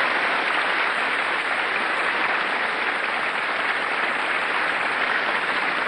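A crowd applauding steadily: many hands clapping at once in a dense, even patter.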